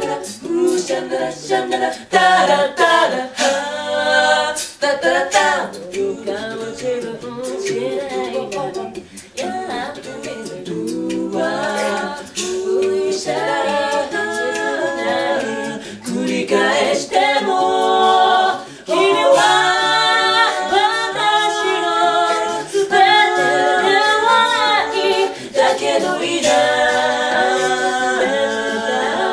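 Several voices singing a cappella together, with no instruments.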